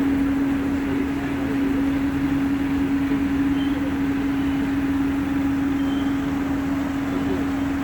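Construction machinery running steadily: a constant hum with one strong, unwavering tone over a rough mechanical rumble.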